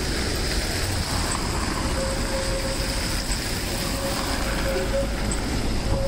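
Street traffic: a tram moving away, with buses and cars passing close by, a steady rumble throughout. A faint thin whine joins in about two seconds in.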